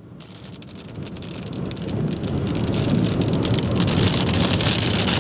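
Heavy rain pelting a vehicle, heard from inside the cab: a dense patter of many small drop impacts. It builds up over the first few seconds, then holds steady and loud.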